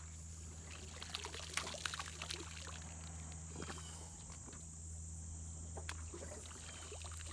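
Aluminum duck-foot push pole being planted and pulled through duckweed-covered water: scattered small splashes, drips and light knocks over a steady faint hum.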